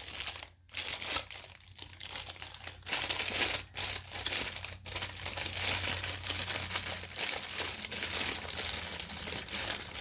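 Packaging being crinkled and rustled by hand while unwrapping smart-lock parts, a continuous rustle broken by a few short pauses in the first five seconds.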